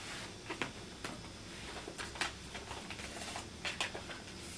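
Paper rustling and handling, with scattered soft crinkles and small clicks, as photographs and documents are sorted through by hand.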